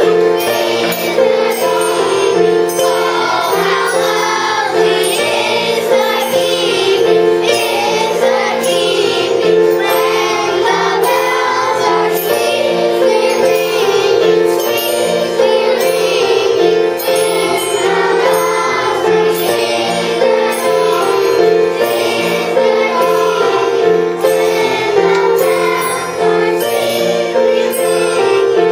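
Elementary-school children's chorus singing together over a steady, rhythmic instrumental accompaniment.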